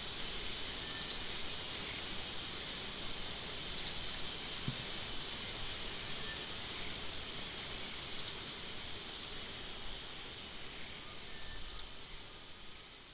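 Natural outdoor ambience: a steady high insect drone with short high chirps every one to three seconds, fading near the end.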